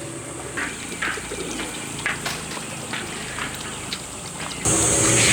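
Birds calling outdoors in short scattered calls. Near the end the sound abruptly gets louder, with a steady high hiss and denser calls.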